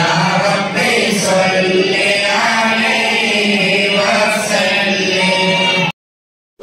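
Group of men chanting a moulid recitation together in unison. The chanting cuts off suddenly near the end.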